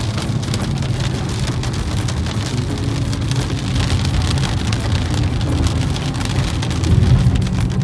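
Heavy rain hitting the car, a dense patter of drops over the steady low rumble of the car on the road.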